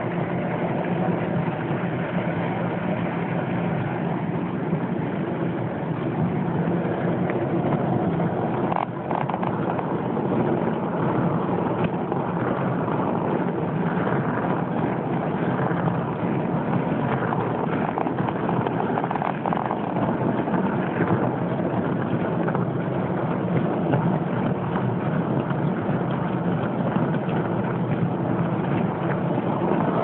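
Frigidaire portable dishwasher running its wash cycle: a steady rush of water spraying against the inside of the tub and the racks, over the hum of the wash pump motor.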